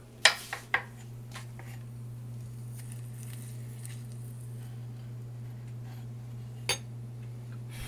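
Cutlery and dishes clinking: three sharp clinks in the first second, a couple of softer ones just after, and one more near the end, over a steady low hum.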